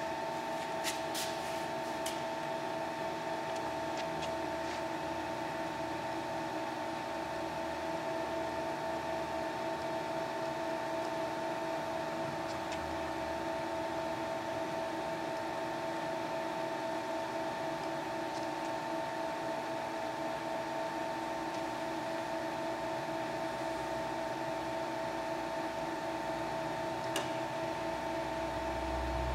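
Manford 2V milling machine running at a steady speed, a constant motor hum made of several unchanging tones, with a few light clicks about a second in and near the end.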